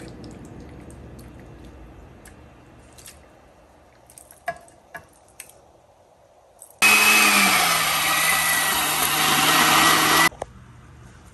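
A few faint knocks of a spoon against a glass baking dish, then an Oster countertop blender runs for about three and a half seconds, pureeing roasted tomatoes, carrots and onion into sauce. Its motor pitch drops a little as it takes the load, holds steady, and cuts off suddenly.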